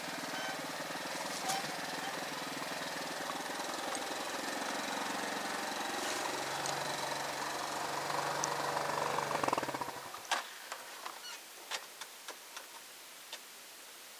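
Motorcycle engine running steadily at low speed on a rough dirt track, getting a little louder just before it cuts out about ten seconds in. After it stops come a handful of scattered clicks and knocks.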